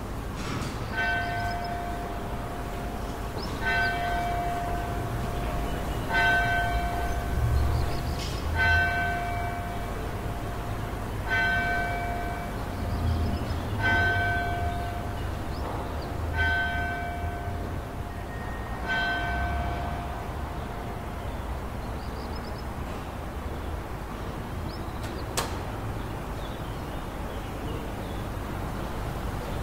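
A single bell tolling eight times at an even pace, about one stroke every two and a half seconds, each stroke ringing on at the same pitch. It stops about two-thirds of the way through, over a steady low rumble.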